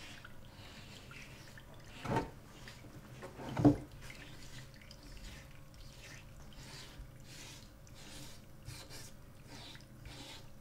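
Hand rubbing and wiping ink across a photogravure copper plate in soft, repeated strokes, with two brief louder bumps about two and three and a half seconds in.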